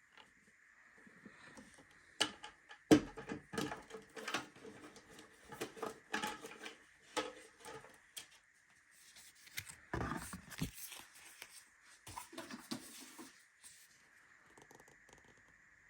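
Handling noises: a run of irregular clicks, knocks and rustles for most of the stretch, then stopping about two seconds before the end.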